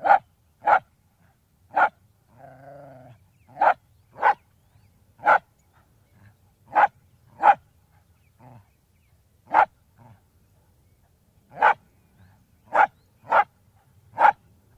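Wire-haired fox terrier barking: about a dozen short, sharp single barks at uneven intervals, often in quick pairs, with a few fainter barks. About two and a half seconds in comes one longer, lower drawn-out call.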